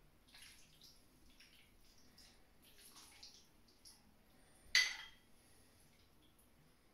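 Fork scraping and clinking against a ceramic bowl while twirling creamy pasta, with one sharper clink a little before five seconds in.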